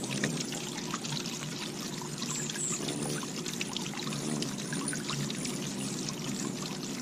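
Steady pouring, splashing water with many small clicks, and a brief high chirp about two and a half seconds in.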